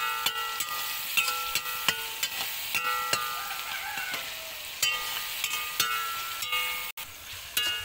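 Sliced onions and ginger-garlic paste sizzling in hot coconut oil, with a metal ladle stirring and repeatedly scraping and knocking against the metal pan; each knock rings briefly. The sound cuts out for an instant near the end.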